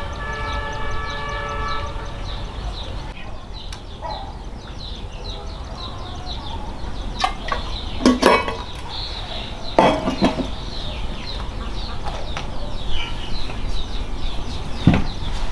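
Repeated high chirps of small birds in the background. A plastic bottle and glass pitcher are handled, with sharp clicks and clatters about eight and ten seconds in and again near the end as the bottle cap is screwed on.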